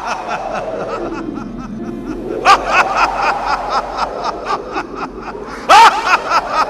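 A man laughing at length, a steady run of short, even 'ha' pulses, with a louder burst near the end.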